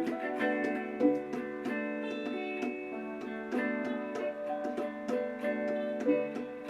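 Background music: gentle plucked guitar or ukulele picking.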